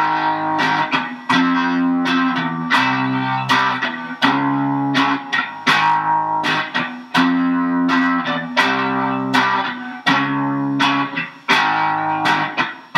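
Background music of plucked guitar: repeated notes and chords, each starting sharply and fading, in a steady rhythm.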